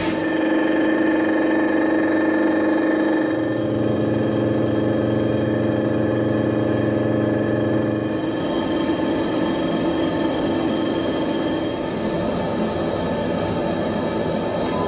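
Mazak Variaxis i-800T five-axis machining centre milling the teeth of a metal spiral bevel gear with an end mill: a steady machining whine of several held tones, which shift about three and a half seconds in and again about eight seconds in.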